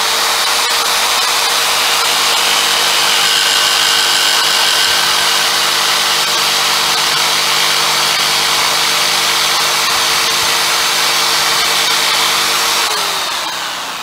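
Corded jigsaw with a scroll blade cutting through half-inch MDF, its motor running at a steady speed. Near the end it is switched off and winds down, falling in pitch.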